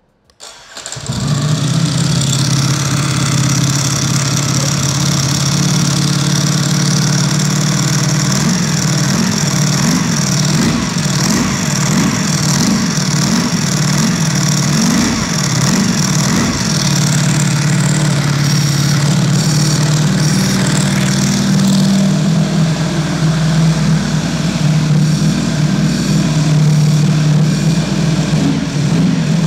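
Ducati Streetfighter V4 SP's 1103 cc Desmosedici Stradale V4 starting about half a second in and catching at once, then idling loud on its stock exhaust. The dry clutch and engine clatter make it sound like a broken engine, which is normal for this Ducati.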